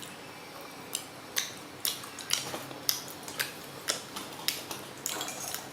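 Sharp clicks and crinkles of plastic packaging being handled and opened, about two a second after a quiet start, with a denser crinkle near the end.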